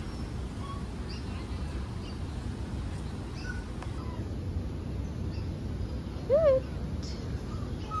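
Steady low background rumble with scattered faint bird chirps; about six seconds in, one short loud animal call that rises and then falls in pitch.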